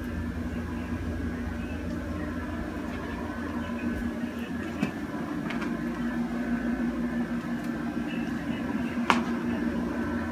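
A steady mechanical hum with a few sharp clicks, the loudest about nine seconds in.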